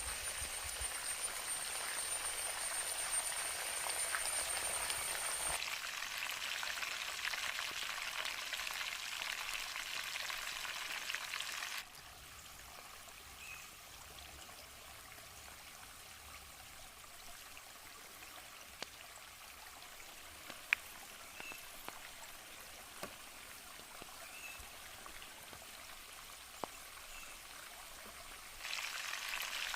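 Chicken frying in hot oil, a steady sizzle. About twelve seconds in it drops away to a quieter hiss with a few sharp clicks and short faint chirps, and the sizzle comes back near the end. A thin high insect-like whine runs through the first few seconds.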